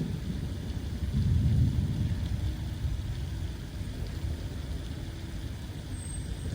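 Distant thunder rumbling low, swelling about a second in and then slowly dying away, from an approaching thunderstorm.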